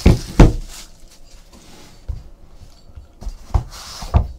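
Handling of a rigid trading-card box on a tabletop: two sharp knocks in the first half second as the box is set down, then quieter scratching and rustling with a few lighter taps as the lid is opened and the inner box is lifted out.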